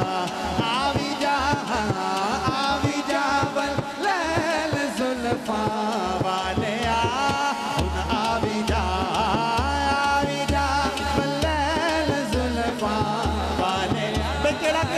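Devotional music: a melody with many fast ornamental turns carried over a steady low beat from a large barrel drum (dhol).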